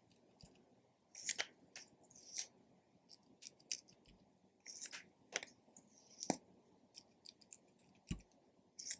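Slime being squished and stretched by hand, giving faint, irregular sticky clicks and small crackling pops.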